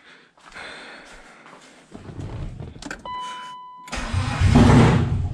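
Turbocharged BMW M52 straight-six cranking and then firing loudly about four seconds in, in a start attempt with the throttle cable disconnected. A steady electronic beep sounds for under a second just before it fires.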